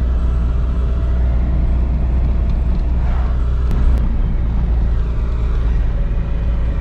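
In-cabin sound of a BMW E30 with a swapped SR20DET turbocharged four-cylinder engine, running steadily at a light cruise under road rumble.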